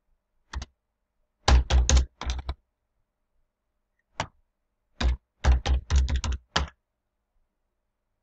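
Typing on a computer keyboard as numbers are keyed into input fields. There are two quick runs of keystrokes, about a second and a half in and again about five seconds in, with a few single strokes around them.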